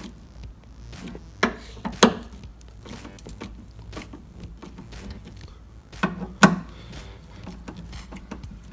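Hand work on a van's sliding side door: two pairs of sharp knocks, one about a second and a half in and one about six seconds in, with light clicks and taps between.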